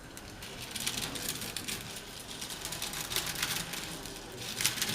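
Crisp deep-fried noodles crackling and crunching as they are crushed by hand, in uneven bursts of rapid crackles.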